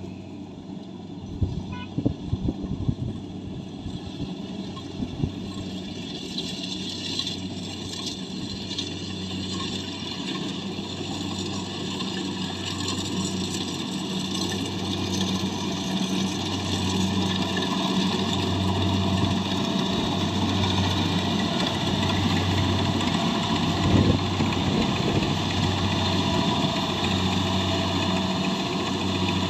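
Engine of a rice harvesting machine running steadily, its low hum throbbing about every second and a half and slowly growing louder. A few knocks come about two seconds in, and a single thump near the end.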